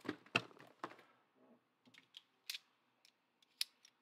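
Cardboard trading-card display boxes being handled and set down on a table: a quick run of knocks and scrapes in the first second, then a few single sharp clicks.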